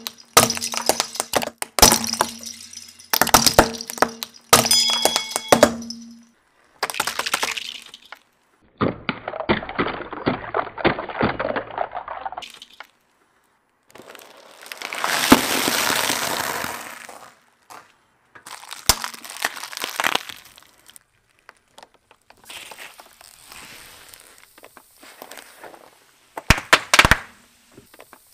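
A car tyre rolling over objects and crushing them. In the first seconds small plastic pieces crack and snap sharply. A little past the middle a cardboard box of chocolate cereal is flattened in one long crunch of about three seconds, with further bursts of crackling between and after.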